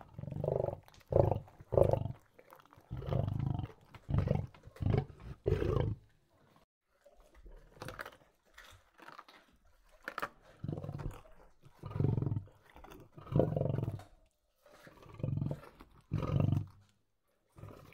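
Lion growling over its food in a series of short, deep growls, each under a second long, with a quieter stretch in the middle.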